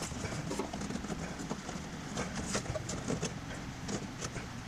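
Irregular light clicks and taps from handling rubber fuel hoses against the car's underside and frame, over a steady low hum.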